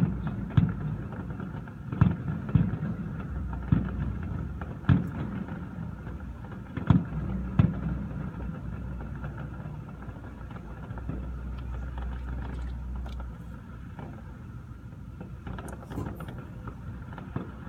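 Distant fireworks shells bursting: irregular booms and cracks, thickest in the first eight seconds and thinning out after that, over a steady low rumble.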